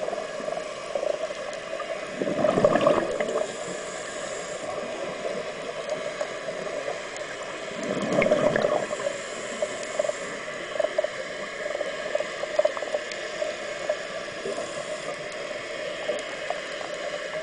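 Scuba diver's exhaled bubbles rushing past an underwater camera twice, about two and eight seconds in, over a steady crackling hiss of the water.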